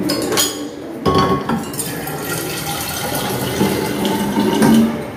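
Water from a tap running into a container. It starts abruptly about a second in and flows steadily.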